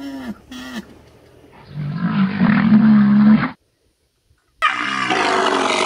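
Asian elephants calling: two short calls that fall in pitch at the start, then a loud, rough roar about two seconds in that cuts off abruptly. After a second of dead silence a second harsh call starts near the end.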